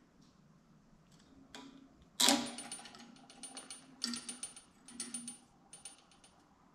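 A sharp metallic clank about two seconds in, then several short bursts of rapid clicking and rattling as small steel parts and pliers are worked together by hand.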